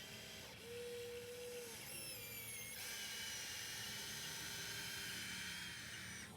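Small electric motors of a radio-controlled model excavator whining as it works. A short lower whine comes about half a second in, then a brief high whine that shifts in pitch, then a steady high whine that cuts off near the end.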